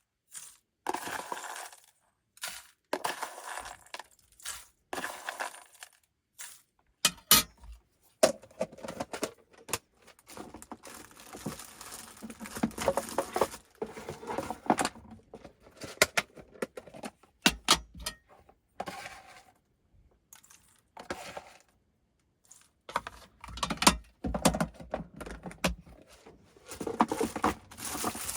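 Close-up handling sounds of small hard objects: irregular clinks, knocks and crunches, some louder, with short quiet gaps between them.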